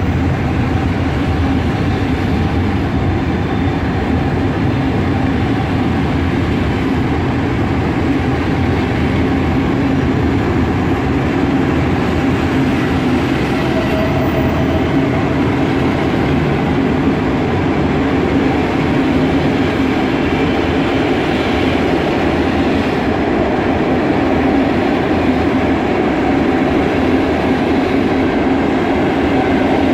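PKP Intercity passenger coaches rolling past a platform in an enclosed underground station: a steady rumble of wheels on rail that holds evenly throughout.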